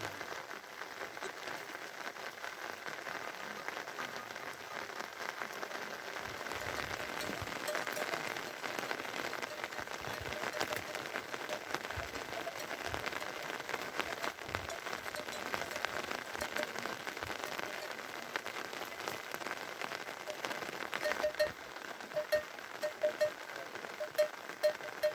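Steady rain falling, with many individual drops striking close by. In the last few seconds a run of sharper, louder drip-like taps comes roughly twice a second.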